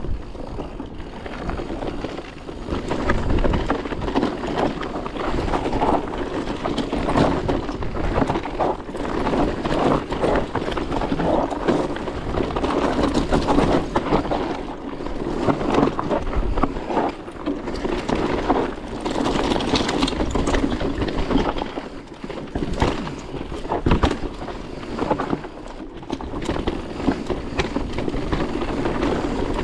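Electric mountain bike riding a rough dirt and rock trail. The tyres crunch over stones and the bike rattles and knocks over bumps without pause.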